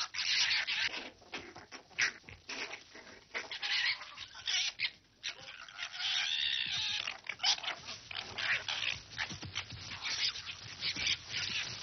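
Two red foxes fighting: a run of short, harsh, raspy screeches and squeals, with one longer pitched cry about six seconds in.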